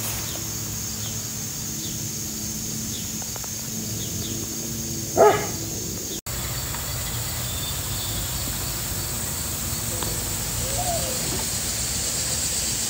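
A dog barks once, short and sharp, about five seconds in, over a steady outdoor background with a high hiss.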